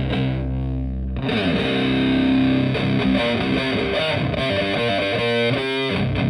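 Stratocaster electric guitar played through a two-knob Park Fuzz pedal into a Twin Reverb–style valve amp, giving a fuzzy, distorted tone. A held chord fades out, a new chord is struck about a second in and sustains, and a quicker run of short notes follows near the end.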